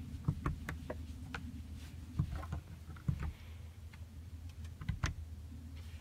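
Light clicks of the rear overhead light control buttons being pressed by a finger, several in quick succession at first and a sharper one about five seconds in, over a steady low cabin hum.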